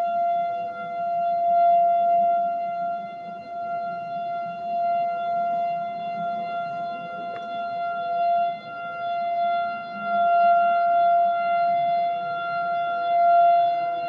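Outdoor civil defense warning siren sounding a steady tone at one pitch for its monthly test, its loudness swelling and fading every few seconds.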